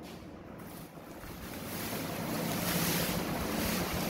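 Plastic wrapping rustling and crinkling as it is pulled off a new water heater. The rustling grows louder after about a second.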